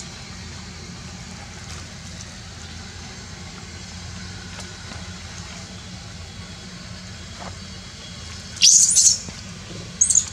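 A young macaque squealing in short, high-pitched cries: one loud burst about eight and a half seconds in and another near the end, over a steady low hum.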